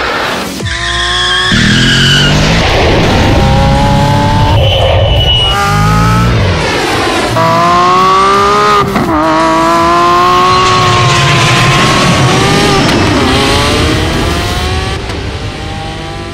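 Lamborghini Aventador SVJ's V12 accelerating hard, its pitch climbing and then dropping back at each gear change, several shifts in a row. The sound fades down near the end.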